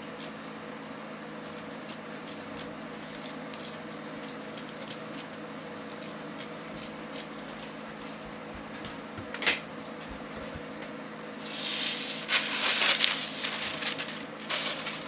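Faint snips of fabric scissors cutting cotton fabric along waxed craft paper over a steady low hum, then a sharp click. Near the end comes a louder rustle of paper and fabric being handled for about three seconds, the loudest sound here.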